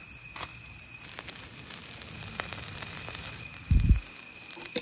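Split mackerel grilling in a wire grill basket over hot charcoal: a steady sizzle with scattered small crackles and pops from the coals. A single dull low thump comes near the end.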